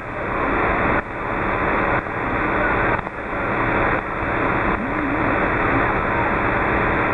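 Shortwave radio receiver hiss and static on the 27 MHz band, a loud even rush whose level dips and recovers about once a second. A few faint wavering tones from a weak signal show through about five seconds in; that signal is too weak to make out.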